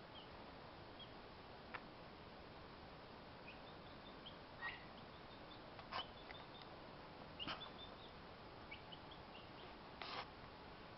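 Young poultry peeping: faint, short, high peeps and chirps, scattered and irregular, with a few soft clicks among them.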